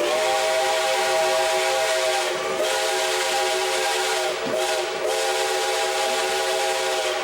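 Steam locomotive chime whistle blowing a chord of several tones over a hiss of steam, held in long blasts with two brief breaks.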